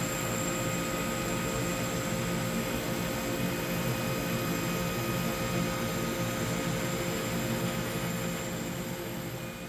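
Laser cutter running as it cuts the bellows ribs: a steady whirring hum of its fans and air blower with a few fixed steady tones, fading out near the end.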